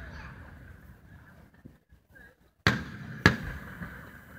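Aerial firework shells bursting: two sharp booms about half a second apart, a little under three seconds in, each trailing off in a rolling echo. Before them, the rumble of an earlier burst fades out.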